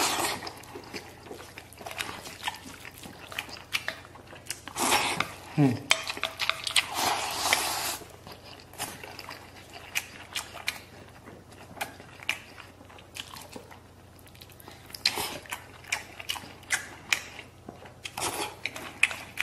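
Chopsticks clicking and scraping against a metal bowl as rice and toppings are mixed and eaten, with chewing and slurping mouth sounds.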